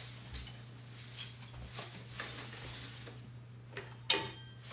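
Cookie cutters clinking and clattering as they are picked through on a kitchen counter: a run of light clicks, then one sharper ringing clink about four seconds in.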